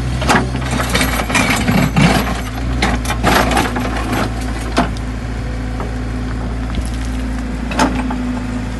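A ripper bucket on a CAT 416 backhoe loader scrapes and crunches through stony, gravelly soil in a trench, with sharp knocks of rock on steel through the first half. The loader's diesel engine runs steadily underneath, and a single knock comes near the end.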